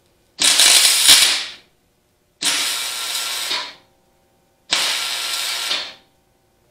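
Arc welding in three bursts of about a second each with short pauses between: a nut being welded onto a broken, rusted-in bolt in a tractor's rear axle housing so the bolt can be backed out. The heat of the weld expands the bolt and crushes the rust in its threads.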